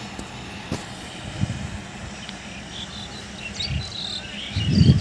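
Steady high-pitched insect buzz, with birds chirping from a little past halfway. Near the end a loud low rumble comes in gusts.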